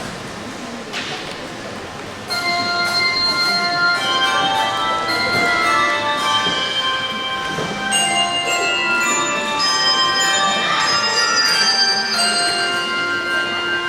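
A handbell choir starts playing about two seconds in, after a quieter stretch of room sound. Many bells are struck together and one after another, each tone ringing on and overlapping the next.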